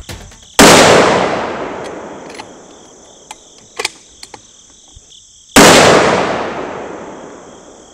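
Two shots from a 6.5 Creedmoor Aero Precision Solus bolt-action rifle fired without a suppressor, about five seconds apart, each echoing and dying away over a couple of seconds. A few faint clicks fall between the shots.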